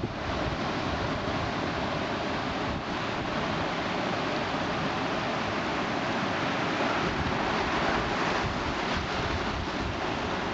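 Ocean surf washing up the shallow beach in a steady rush, with wind buffeting the microphone.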